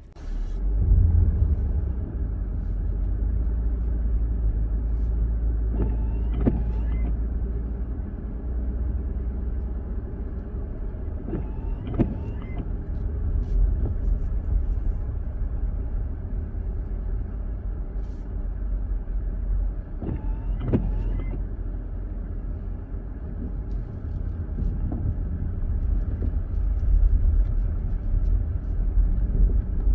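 Car driving, heard from inside the cabin: a steady low rumble of engine and road noise, with three brief squeaks at intervals.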